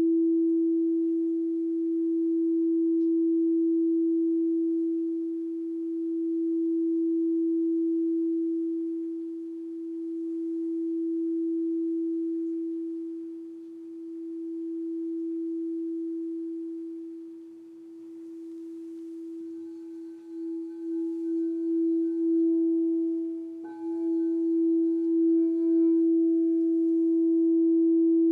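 Crystal singing bowl tuned to E ringing one long, steady hum with faint overtones, its level slowly swelling and fading. About two-thirds through, the tone begins to pulse as the wand works the rim again, and a light knock near the end brings in brighter ringing overtones.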